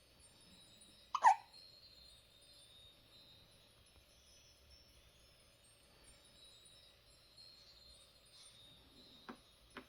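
An 18-day-old newborn baby hiccuping: one sharp hiccup about a second in, then two smaller ones near the end.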